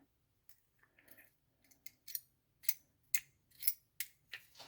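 Light metallic clicks and clinks, about nine at irregular spacing, as small parts of a Tomos moped engine are handled during the strip-down.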